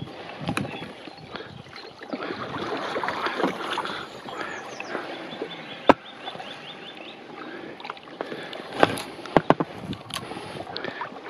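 Splashing paddle strokes and a kayak being worked through fallen deadwood on slow water, with scraping and rustling from the branches. There are sharp knocks, one about halfway through and a quick cluster near the end, and faint birds chirping.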